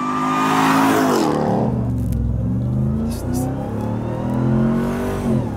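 Ram TRX's supercharged 6.2-litre Hemi V8 under hard acceleration. The revs climb, drop back sharply about a second in, then climb steadily again and drop once more near the end.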